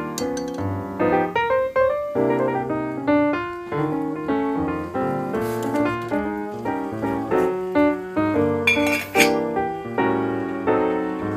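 Background solo piano music, with a few light clinks near the start, midway, and about two-thirds of the way through.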